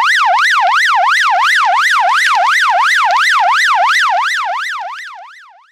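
Electronic siren effect: a pitched tone sweeping rapidly up and down about four times a second, fading out and slowing over the last second and a half.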